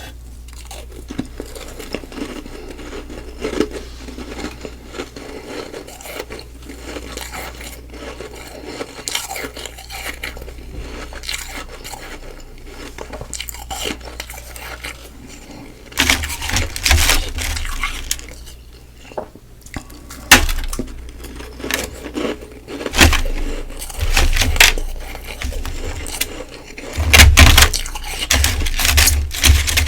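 Close-miked chewing of humidifier-frost ice: soft, quiet crackling chewing for about the first half, then a run of loud crunching bites from about halfway.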